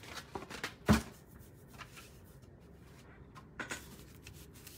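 Hands handling trading-card packs and cardboard on a tabletop: a sharp knock about a second in, a softer tap later, and faint rustling between.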